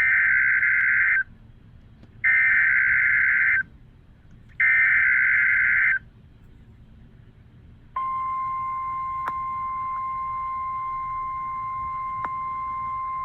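EAS SAME header on NOAA Weather Radio: three identical screeching bursts of digital data, each about a second and a half long with short gaps between. About eight seconds in the steady 1050 Hz Warning Alarm Tone begins, the signal that an alert message follows, here a severe thunderstorm watch. Two faint clicks sound during the tone.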